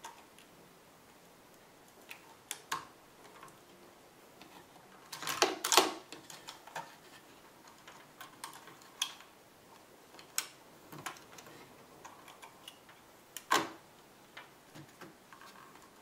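Scattered small clicks and taps of a 2.5-inch laptop hard drive and its bracket being handled and pressed into a MacBook Pro's drive bay. There is a louder cluster of knocks about five to six seconds in and a sharp click about thirteen seconds in.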